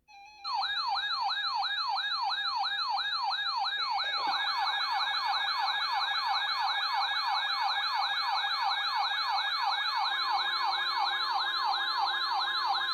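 Electronic siren-style alert tone opening an Emergency Alert System broadcast: a loud yelping wail that sweeps quickly up and down, several times a second. A second overlapping sweep joins about four seconds in, and a steady high tone sounds under it near the end.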